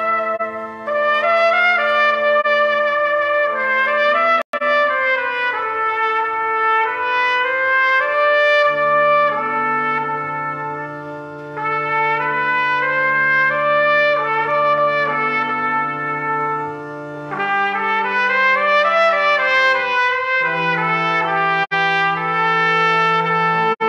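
Trumpet playing a melody accompanied by a church organ, which holds long sustained bass notes under it. The sound cuts out for an instant twice, about four seconds in and near the end.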